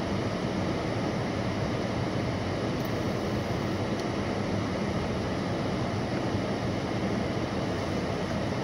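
Steady rush of a car's air-conditioning fan blowing at a high setting, heard from inside the cabin of the parked car.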